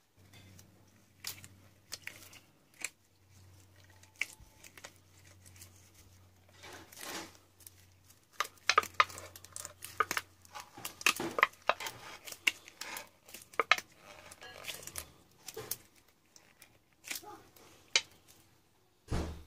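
Gloved hands handling a jar lid fitted with rubber hoses: irregular rustling, clicks and scrapes, busiest in the middle, with a sharper knock near the end. A faint steady low hum lies underneath for most of the time.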